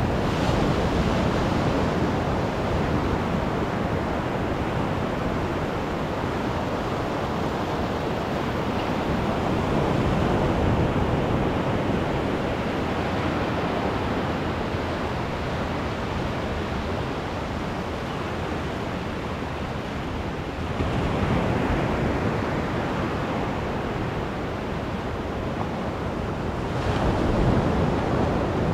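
Ocean surf breaking and washing up the sand at the water's edge: a continuous rushing hiss that swells each time a wave comes in, several times, with the last swell near the end the loudest.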